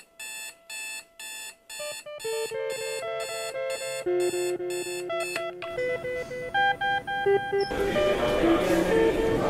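An alarm ringtone going off: a bright chiming melody of repeated electronic notes. Background music with guitar comes in near the end.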